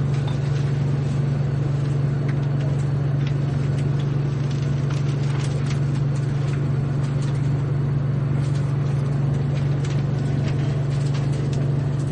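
Steady low drone of an idling diesel train engine, with faint scattered clicks and knocks over it.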